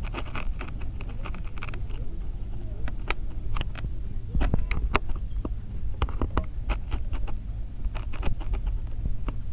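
Wind buffeting the microphone as a steady low rumble, with scattered short sharp clicks and taps.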